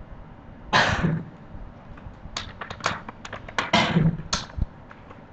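Computer keyboard keys clicking in a quick irregular run of taps, about two to four seconds in. There are also two louder rushes of noise, each about half a second long, one near the start and one in the middle.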